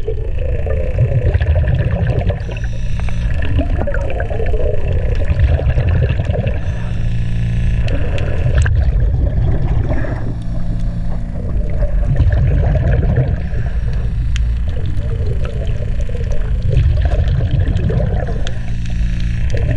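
Underwater sound through a submerged camera: a loud, steady low rumble with a constant low hum, broken every few seconds by bursts of bubbling from a diver's exhaled air.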